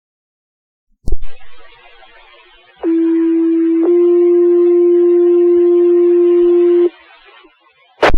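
Fire department two-tone sequential paging tones over dispatch radio: a steady low tone for about a second, then a slightly higher tone held for about three seconds, setting off the volunteer firefighters' pagers. A key-up click and static hiss come before the tones, and another click comes near the end.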